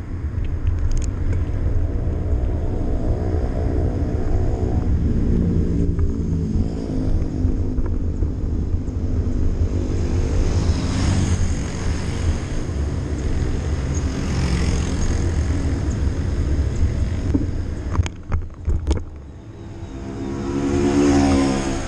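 Wind rumbling on a bicycle-mounted action camera's microphone while riding along a street, mixed with the engines of passing motor vehicles. A few sharp knocks come about three-quarters of the way through, and a vehicle grows louder as it passes close near the end.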